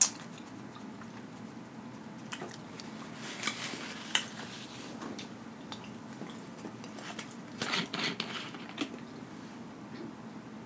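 Close-miked chewing and lip-smacking, with scattered short wet clicks and crackles from the mouth.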